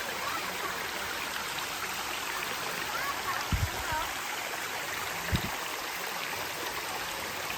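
Stream water rushing steadily over a waterfall, with a few low thumps about three and a half and five and a half seconds in.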